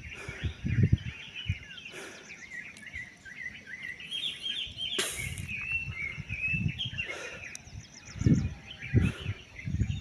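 Many small birds chirping at once, a dense overlapping chatter of short high calls. Low rumbling bumps come and go beneath it, loudest near the start and late on, with a single sharp click about halfway.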